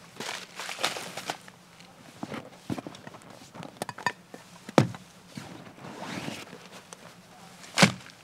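Gear being stuffed into a waterproof Ortlieb pannier: irregular rustling and scuffing of the bag's stiff fabric and its contents. There are sharp knocks, the loudest about five seconds in and one near the end.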